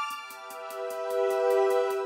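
Background music: sustained chords over a steady, fast ticking beat, moving to a new chord just after it begins.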